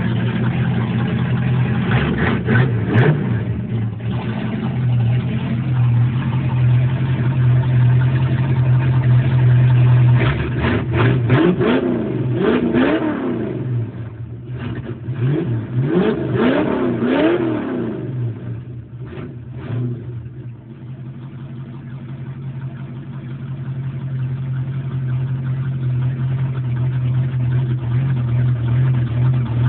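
Modified Ford 302 V8 in a 1990 Fox-body Mustang with straight-piped exhaust, idling. It is blipped in a quick series of revs roughly a third of the way in, again a little past the middle, then settles back to a steady idle.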